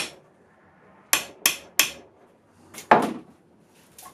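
Hammer blows on the cast-iron body of a Record No. 3 bench vice, knocking the sticking sliding jaw loose: a loose series of sharp metallic knocks, with a louder, heavier clunk about three seconds in.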